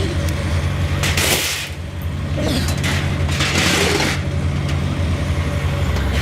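An engine runs steadily under about three short, noisy crashes of scrap steel being thrown off a truck during unloading.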